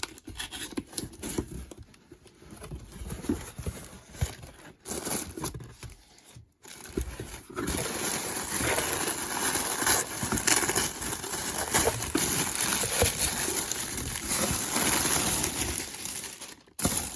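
A cardboard shipping box and its packing being opened by hand: scattered handling knocks and rustles at first, then continuous crinkling and rustling from about halfway through.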